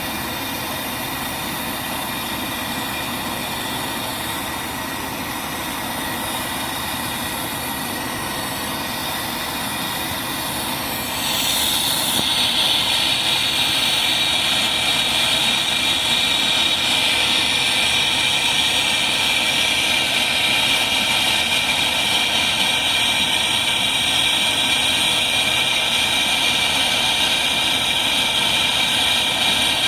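Steady hiss of a brazing torch flame on copper pipe. It gets louder and harsher about eleven seconds in, as the flame is turned up.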